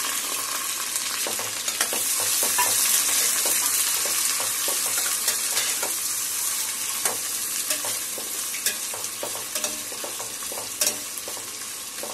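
Sliced onions frying in hot oil in a stainless steel pot: a steady sizzle, with clicks and scrapes of a metal spatula stirring them against the pot. The sizzle slowly gets quieter as the onions start to sauté toward brown.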